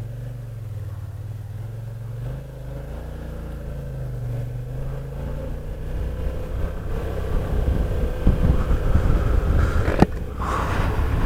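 Kymco AK550 maxi-scooter's parallel-twin engine pulling away from a stop and running up to road speed, its note rising a few seconds in. Wind rush grows louder as it speeds up, and a single sharp knock comes near the end.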